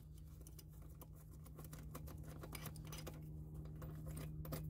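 Socket wrench on an extension turning out a 10mm bolt: faint, irregular small metal clicks over a low steady hum.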